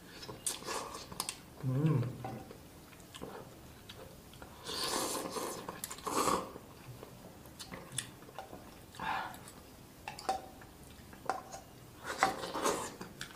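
Mukbang eating sounds: curry noodles slurped off a metal fork and chewed, in several bursts, with the fork clicking against the pan. A short low hum from the eater comes about two seconds in.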